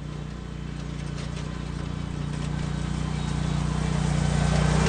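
Zero-turn riding lawn mower's engine running steadily, growing steadily louder as the mower comes closer.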